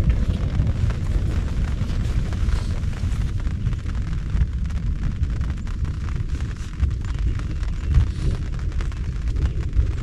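Heavy rain pattering fast and dense on the fabric roof of a pop-up hunting blind during a thunderstorm, over a continuous deep rumble.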